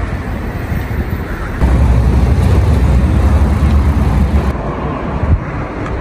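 Passing road traffic: a steady mix of car engines and tyre noise, turning into a heavier low rumble about a second and a half in.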